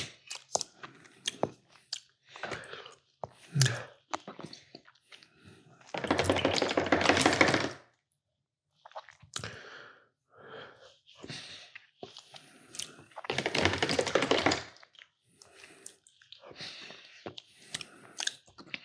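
Dessert and tableware being handled close to the microphone: scattered clicks, taps and knocks, with two stretches of dense rustling or scraping about two seconds each, at about six and thirteen seconds in.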